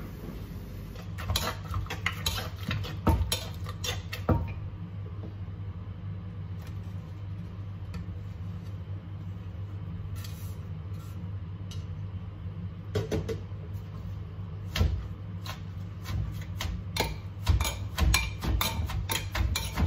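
Scattered knocks and clatter of kitchen utensils, then a wooden pestle pounding shredded papaya in a clay mortar, with a spoon stirring, the strokes coming faster and denser near the end. A steady low hum runs underneath.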